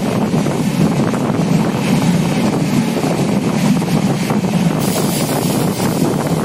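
Passenger express train running at speed: a steady rumble of wheels on the rails, with wind buffeting the microphone at the open window.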